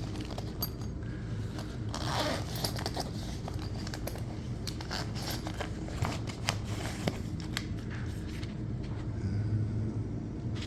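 Small items being handled and rummaged through in a tool bag pouch: scattered clicks, taps and rustling, with a louder rustle about two seconds in, over a steady low hum.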